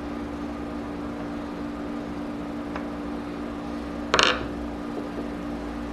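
Screws and hand tools being worked on the Burke #4 horizontal mill's spindle housing: a faint tick, then one short, bright metallic clink about four seconds in, over a steady hum.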